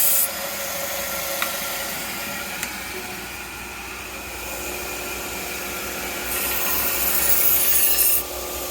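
Belt sharpener running steadily while a knife edge is drawn lightly across the moving abrasive belt, giving a high hiss of steel on abrasive. The hiss stops just after the start and returns for about two seconds near the end. The light passes put a small bevel on the edge to strengthen the apex.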